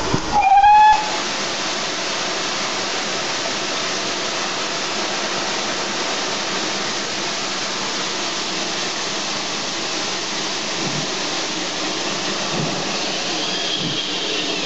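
Steam locomotive: a short whistle blast about half a second in, then a steady hiss of escaping steam.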